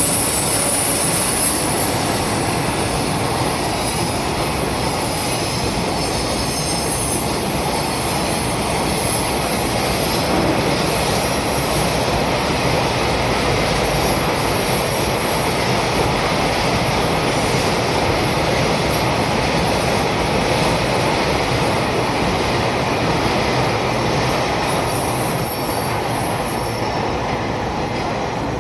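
A JNR-liveried EF65 electric locomotive hauling a train of tank wagons slowly past, with a steady rumble of wheels on rail and a high squeal that comes and goes.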